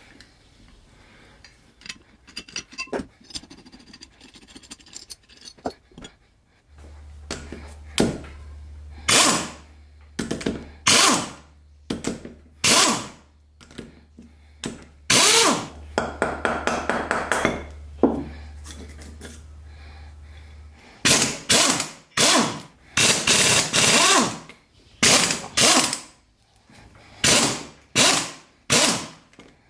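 Cordless drill-driver with a socket running in repeated short bursts, undoing the bolts of a small air compressor pump's cylinder head. Lighter clicks and taps of hand tools come in the first few seconds.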